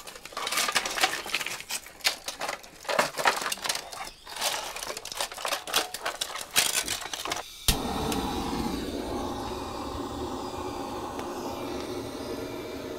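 Firewood being handled and fed into an agungi, the fire hole under a Korean ondol floor: irregular sharp knocks, clacks and snaps of sticks. About eight seconds in the sound switches abruptly to a steady, even noise.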